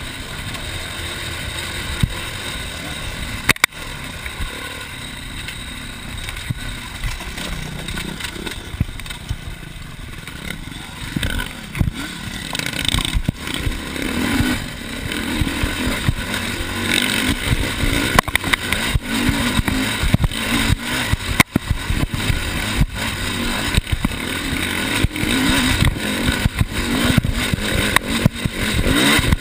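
Enduro dirt-bike engine running under changing throttle along a rough trail, with many sharp knocks and rattles from the bumps. It eases off for a few seconds, then runs harder from about halfway through.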